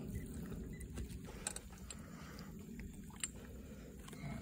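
Low steady rumble of wind and water around a small fishing boat, with a few faint clicks and taps as a landed bass is lifted from the net and handled.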